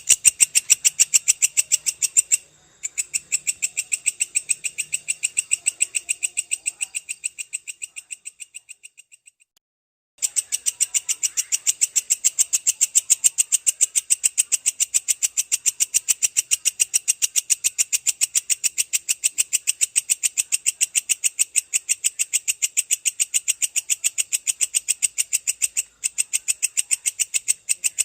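Belalang kecek katydid calling in a long, rapid, even train of sharp, high ticking chirps. The train breaks briefly a few seconds in, fades away to a short silence about a third of the way through, then starts again and runs on steadily.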